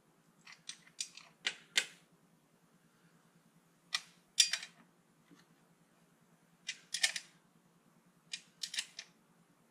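Sharp metal clicks and clinks in small clusters every couple of seconds, from hand tools working the bolts and fittings on top of a Land Rover Series 3 2.25-litre diesel engine that is not running. A faint steady low hum sits underneath.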